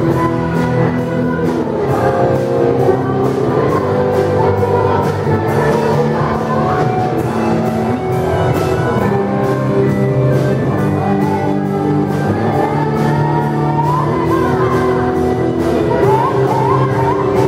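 Rock band playing live: drum kit keeping a steady beat under electric bass and electric guitar played through amplifiers.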